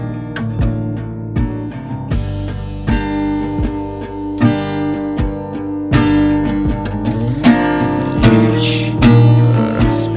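A band's song in a passage without vocals: strummed acoustic guitar over held chords, with a steady beat.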